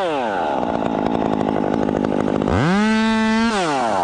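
Two-stroke chainsaw running: it drops to a lower, rough-sounding speed at the start, then revs up to a high steady whine about two and a half seconds in and falls back near the end.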